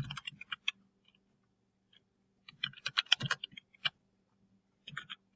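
Computer keyboard typing in short bursts of keystrokes: one run at the start, a longer one about two and a half seconds in, and a few keys near the end.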